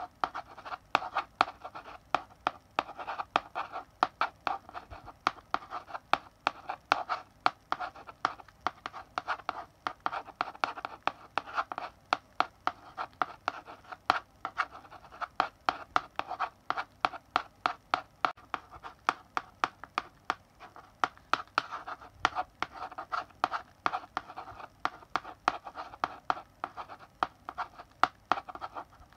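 Chalk writing on a blackboard: a rapid, uneven run of taps and short scratching strokes as letters are written, with no pause.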